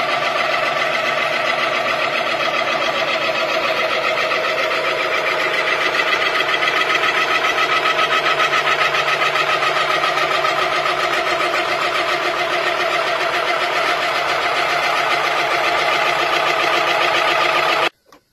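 1926 Savage Arms ice cream refrigeration unit running, its mercury-type hermetic compressor turning as a whole: a steady mechanical hum with a fast warble. It cuts off suddenly just before the end.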